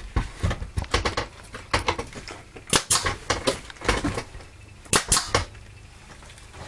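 Irregular series of sharp knocks and clicks, several a second at times, with louder strikes about three and five seconds in.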